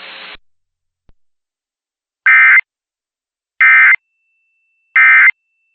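Emergency Alert System data tones: three identical short, buzzy bursts, each about a third of a second and spaced about 1.3 s apart, the SAME end-of-message code that closes an EAS alert. A faint hiss of broadcast static cuts off about half a second in.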